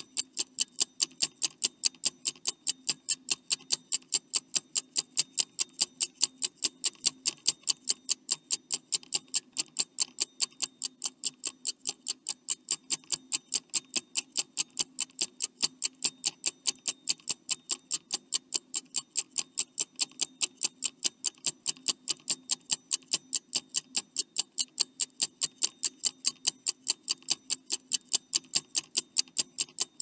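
Clock-ticking sound effect: fast, perfectly even ticks, about three a second, marking a countdown timer.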